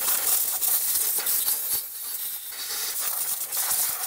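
Compressed-air blow gun hissing as it blows sand and grit off the top of an engine, easing off about two seconds in and then picking up again.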